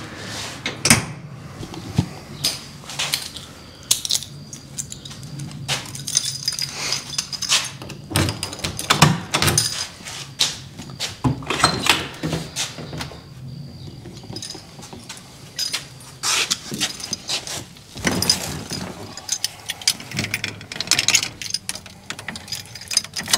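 Keys jangling, with irregular clicks and knocks as a person handles an old pickup truck's door and cab, ending with the key going to the ignition.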